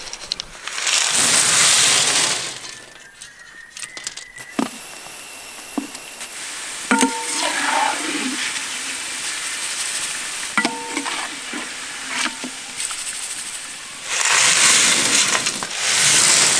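Jackfruit chips sizzling in hot oil in a large iron wok, with a metal slotted ladle clinking against the pan a couple of times. About a second in, and again near the end, comes a loud rush and clatter of crisp fried chips being tipped out, the second time onto a metal plate.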